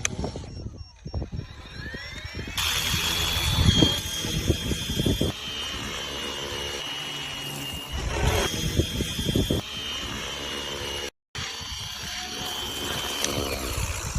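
Flywing FW450L RC helicopter: the motor's whine rises as the rotor spools up about two seconds in. It then holds a steady high whine, dipping slightly, with rotor wash and wind buffeting the microphone. The sound drops out for a moment near the end.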